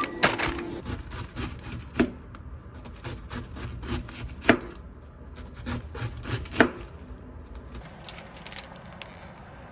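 Kitchen handling sounds: sharp knocks of a utensil on a hard surface about two seconds apart, with lighter clicks between them. A steady tone stops just under a second in.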